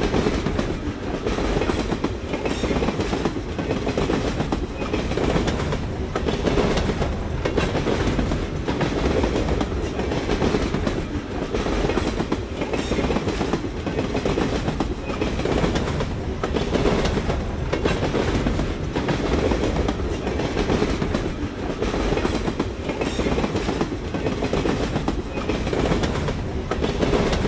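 Train running sound: a steady rumble of railway wagons rolling along, with repeated clickety-clack from the wheels over rail joints.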